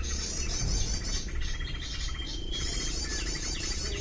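Birds calling: rapid high chirping trills that repeat, a long steady whistled note about midway, and short falling chirps, over a constant low rumble.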